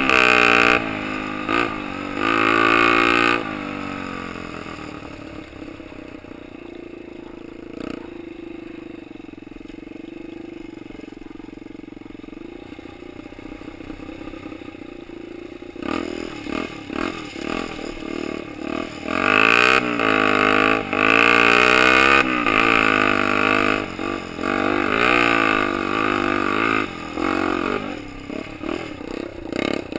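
Honda XL 125 R's single-cylinder four-stroke engine revving and easing off in quick throttle bursts during an off-road ride. A long quieter stretch of steady low-rev running comes in the middle, then repeated loud revving resumes.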